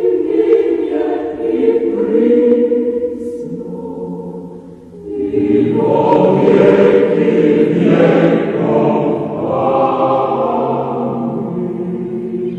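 A church choir singing slow Orthodox liturgical chant in long held notes, in several voices, swelling fuller about five seconds in.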